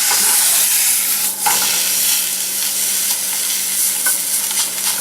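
Chicken frying hard in a very hot pan, a steady loud sizzle, with the seasoning on it burning. A steady low hum runs underneath.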